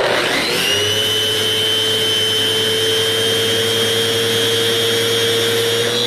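Festool Rotex random-orbital sander running on a pine board with regular sandpaper. It spins up quickly at the start, runs at a steady pitch with a high whine over the rasp of the abrasive, and stops abruptly at the very end.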